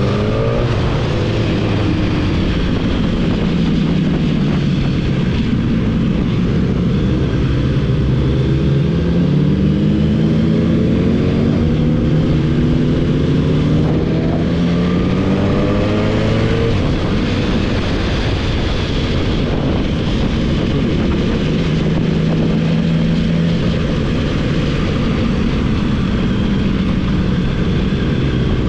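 Motorcycle engine under way, rising in pitch as it accelerates twice and settling back between, over steady wind noise.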